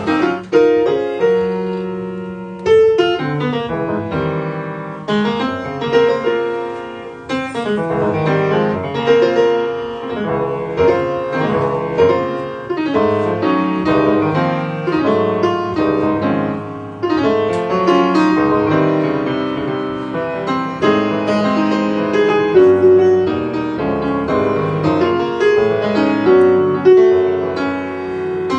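Grand piano playing jazz live, a steady stream of struck chords and runs whose notes ring and die away.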